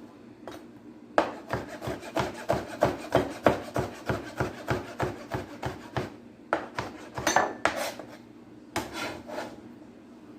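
Knife chopping bell pepper on a cutting board: a quick run of even strokes, about four a second, starting about a second in, then a few slower cuts near the end.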